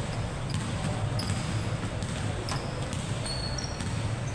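Basketball being played on an indoor court: several short, high sneaker squeaks and the knock of the ball on the floor, over a steady low rumble of the hall.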